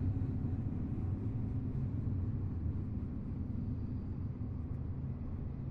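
Double-stack intermodal freight train rolling past: a steady low rumble of the cars and wheels on the rails.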